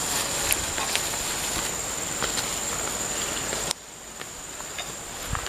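Steady high-pitched insect buzzing, with scattered light footsteps and rustling through undergrowth. Everything drops away abruptly about two-thirds through, and the buzzing comes back faintly near the end.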